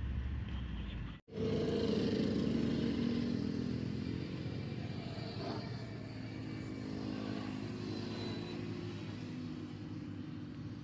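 A motor running steadily, starting after an abrupt cut about a second in and easing off slightly.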